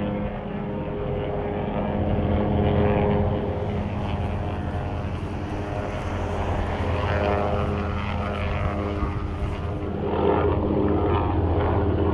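A steady engine drone: a low hum with evenly spaced overtones that holds throughout and swells a little about two seconds in and again near the end.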